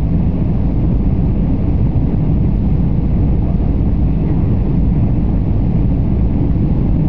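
Airliner cabin noise on the landing approach: a steady, loud rumble of engines and airflow heard from inside the cabin.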